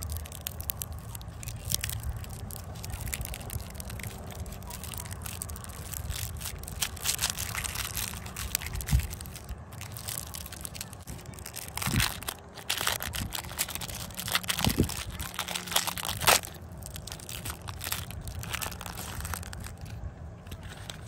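Clear plastic candy wrapper crinkling and crackling as it is twisted and peeled off a swirl lollipop, with a few louder crackles from about halfway through.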